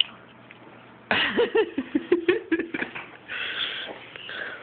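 A toddler's playful vocal sounds, a quick run of squeals and giggles sliding up and down in pitch, between about one and three seconds in.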